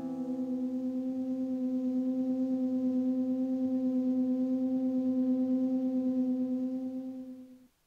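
Background music ends on one long held note that wavers slightly, swells a little, then fades out near the end.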